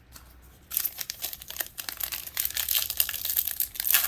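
Plastic trading-card pack wrapper being crinkled and torn open. It starts about a second in as a rapid run of crackles and keeps going.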